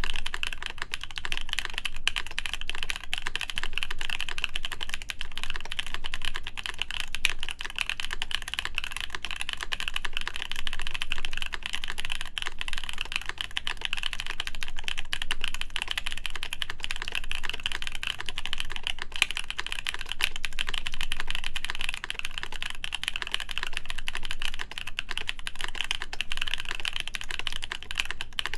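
Fast, continuous typing on a Haytco CAKE60 mechanical keyboard with lubed Epsilon switches in a full acrylic plate and GMK keycaps: a dense, steady stream of keystroke clacks with no pauses.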